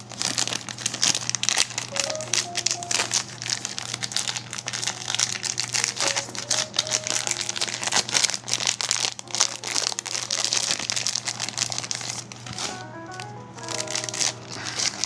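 Crinkling and rustling of plastic card sleeves and wrappers as trading cards are handled, over background music of short held notes.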